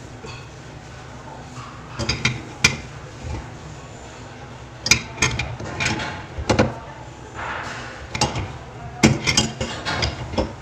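Adjustable wrench clinking against a metal basin drain fitting as the fitting is tightened: sharp metallic clicks in three clusters a few seconds apart.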